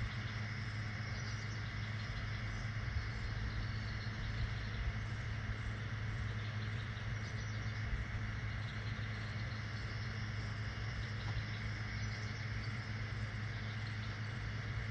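A steady low mechanical hum, like a motor or engine running, unchanging throughout.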